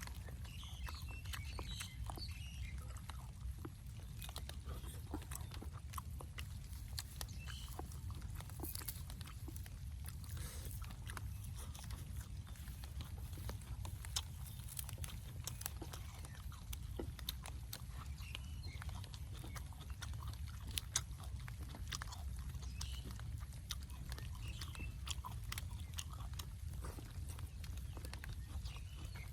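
A person chewing and smacking while eating, with scattered short wet clicks, over a steady low rumble.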